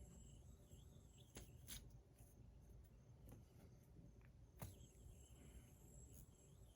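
Near silence: faint room tone with three faint clicks, two close together about a second and a half in and one about two-thirds of the way through.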